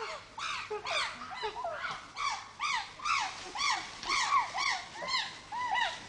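Chimpanzees pant-hooting: a fast run of short hoots that each rise and fall in pitch, about three a second, with several voices overlapping.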